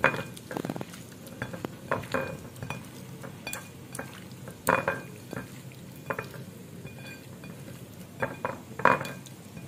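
Hands mixing raw shell-on prawns in a wet marinade on a plate: a wet rustle with irregular clicks and knocks of prawns and fingers against the plate, a few of them louder.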